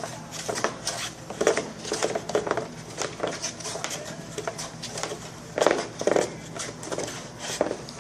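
Irregular taps, clicks and short scraping strokes of hand-waxing work on a snowboard base: the waxing iron and wax being worked over the board to even out the layer, the loudest strokes about five to six seconds in.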